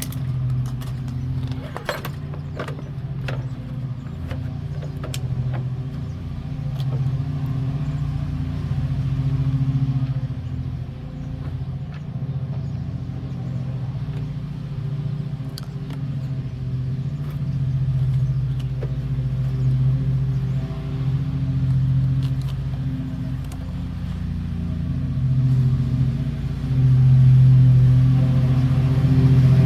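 A steady low engine-like drone that swells and fades, with scattered light metallic clicks and clinks as parts of a walk-behind lawn mower are put back together by hand.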